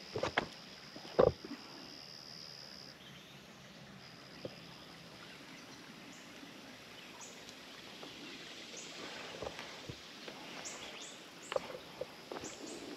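Outdoor ambience: a steady high-pitched whine, broken off briefly about three seconds in, with short rising bird chirps coming more often in the second half. Two sharp knocks in the first second and a half are the loudest sounds, with a few softer clicks later.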